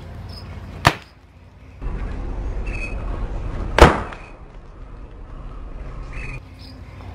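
Homemade pop-pop cracker (match heads and gravel wrapped in tissue and tape) thrown at a concrete wall and exploding on impact: a short sharp crack about a second in, then a much louder bang near four seconds in.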